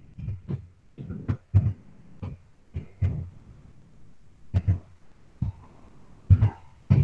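Computer keyboard keystrokes: irregular, separate taps and thuds as a date is typed in.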